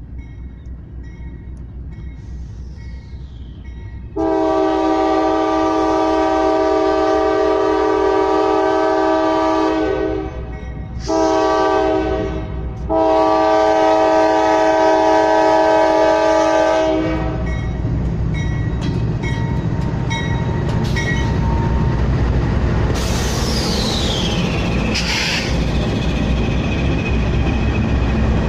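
Norfolk Southern diesel locomotive air horn blowing for the grade crossing in three blasts, long, short, long, over the steady dinging of the crossing bell. The lead locomotives then pass close by with loud engine rumble and wheel noise, and a high squeal glides downward late on.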